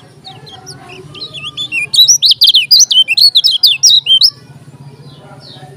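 Kecial kuning white-eye singing: about two seconds in, a loud, rapid run of sharp high twittering notes, each sweeping up or down, lasting about two seconds and stopping abruptly. Fainter chirps of other birds sound before and after it.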